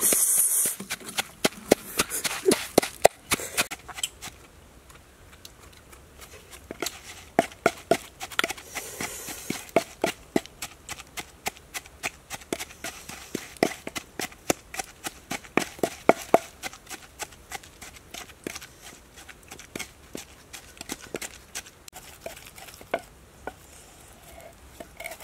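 Wooden pestle pounding chilies and garlic in a mortar: a long run of sharp, uneven knocks, a few a second.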